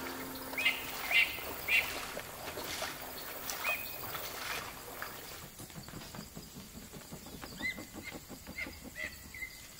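Short bird chirps, three in quick succession at the start, one more a little later, then a string of them near the end, over a soft background of wetland insects and air.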